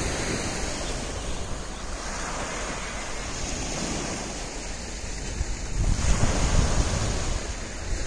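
Small waves washing onto the beach with steady wind, and wind buffeting the microphone in stronger gusts from about six seconds in.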